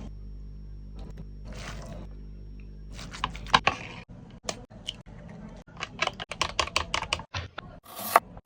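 Quick light clicks and taps of kitchen food preparation, in two irregular runs, with short rustling noises, over a faint steady hum.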